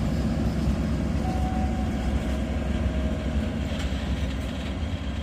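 SM42 diesel shunting locomotive running as it moves off along the track, a steady low engine rumble that slowly fades.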